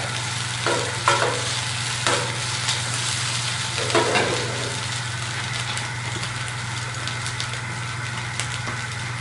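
Pulled chicken sautéing in a hot pan: a steady sizzle, with a few brief louder stirring sounds in the first half.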